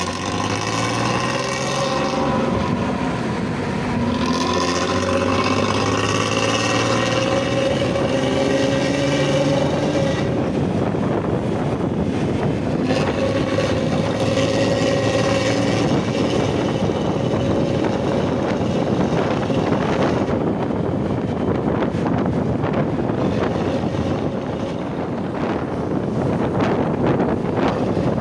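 Bus diesel engine pulling with a 'ngorok' (snoring) exhaust: its note climbs in pitch, breaks off about ten seconds in, then holds steady for a few seconds. In the last part a rushing wind noise on the microphone covers it.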